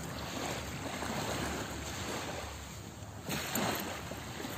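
Small waves washing onto a sandy shore, a steady hiss of surf, with a brief louder burst of noise about three seconds in.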